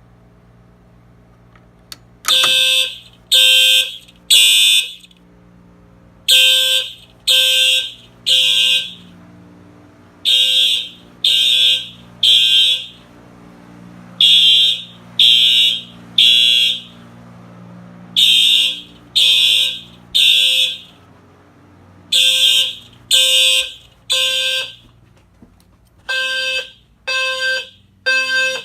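Fire alarm horns sounding during an alarm test: groups of three loud, buzzy beeps with a pause between, repeating about every four seconds, beginning about two seconds in. This is the temporal-three evacuation signal.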